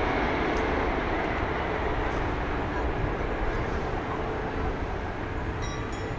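Jet airliner engine noise: a broad rumble with a steady hum in it, slowly fading as the aircraft moves away.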